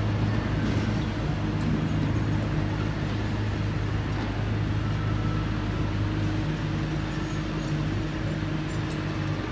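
Diesel engine of a small crawler bulldozer running steadily, a low even drone.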